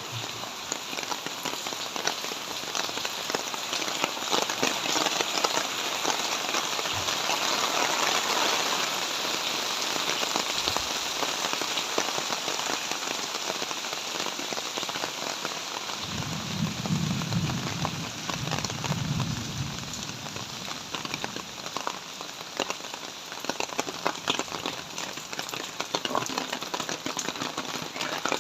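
Heavy tropical rain falling, a dense steady hiss full of close drop patter. A low rumble comes in for a few seconds past the middle.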